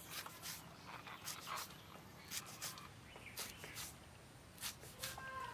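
Small knife cutting through handfuls of fresh chickpea greens held in the hand: faint, crisp irregular snips of the stems, about two a second.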